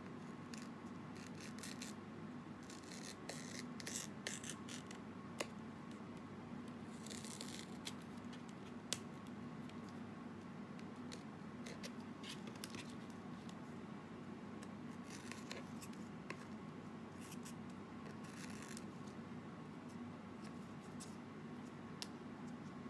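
Banana leaf being cut to shape, in several short bursts of crisp cutting strokes with a couple of sharp clicks, over a steady low hum.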